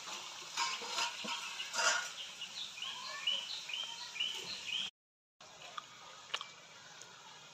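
Potato pakoras deep-frying in hot oil in an iron kadai: a steady sizzle with crackles and pops. A bird chirps a quick run of short rising calls in the middle. The sound cuts out briefly about five seconds in and comes back as a fainter sizzle with a few sharp pops.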